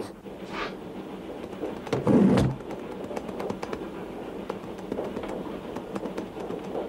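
Steady low rumble of a moving train inside a compartment, with one brief louder sound about two seconds in.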